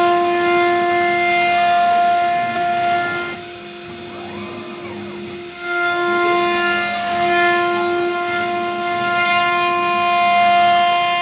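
CNC wood router carving a wood panel, giving a steady high whine with overtones. The whine drops away for about two seconds a third of the way in, when faint rising and falling tones are heard, then returns.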